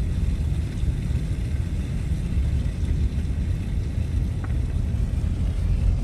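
Car driving on a snow-covered road: a steady low rumble of engine and tyre noise.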